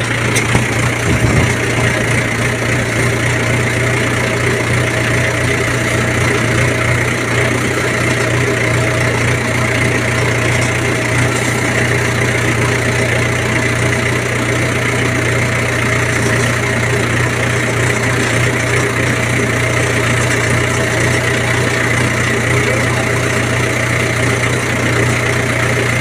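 Tractor's diesel engine running at a steady speed with an even, unchanging note.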